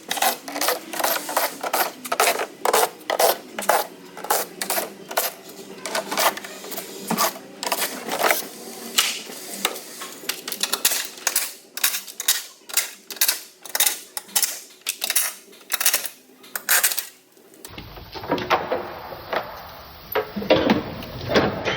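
Rapid, irregular clicking and tool clatter, several clicks a second, as fasteners are taken out to remove the underbody stiffening plate and transmission under panel. About three-quarters of the way through the clicking gives way to a fuller, steadier sound.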